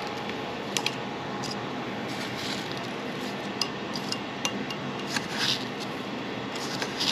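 Metal kitchen tongs clicking against a ceramic bowl and scraping through panko breadcrumbs while a fish fillet is coated: scattered sharp clicks and a few soft gritty swishes over a steady background hiss.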